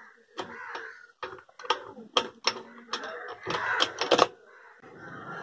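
Steel gears and shaft of a Royal Enfield UCE 350 gearbox clicking and clinking against each other and the aluminium casing as the main shaft is worked into place by hand, in a rapid, irregular run of sharp clicks. The clicks stop near the end, when the shaft seats; once seated it makes no more noise.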